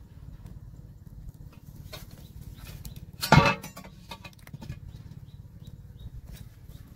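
A steel wok is set down with a clank onto a metal barrel stove about three seconds in, over a steady low rumble. Light taps of a metal ladle in the wok follow.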